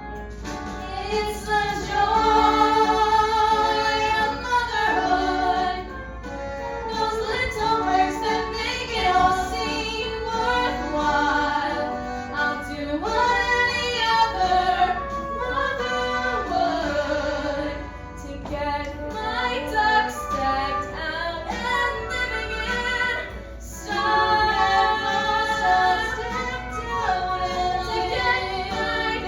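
Music with female singing: held, gliding sung notes over an accompaniment, in several phrases.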